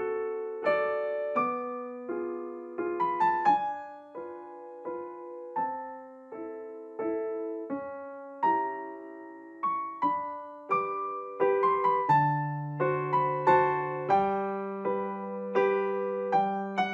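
Background piano music: a gentle melody of struck notes and chords, each note fading away, with lower bass notes joining about twelve seconds in.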